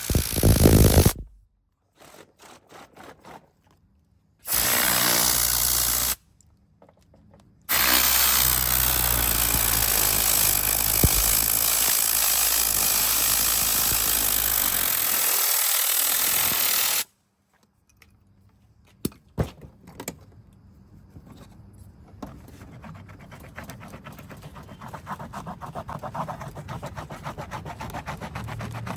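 A loud motorised car-cleaning tool runs in two stretches, a short one and one of about nine seconds, each starting and stopping abruptly. Quieter clicks and rubbing follow.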